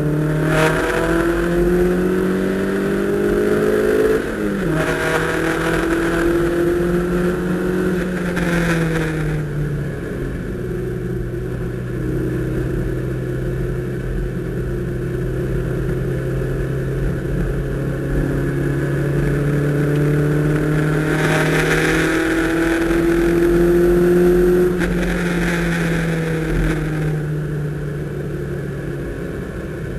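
Toyota MR2's engine heard from inside the cabin while lapping a race track. It pulls hard with its pitch rising, snaps down at a gear change about four seconds in, and eases off around ten seconds. It then holds a long steady pull, climbs again, and falls away as the driver lifts near the end.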